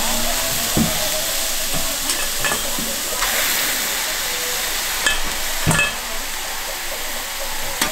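Beef skirt steak sizzling steadily as it fries, with about six sharp clinks of a cooking utensil, a few of them ringing briefly.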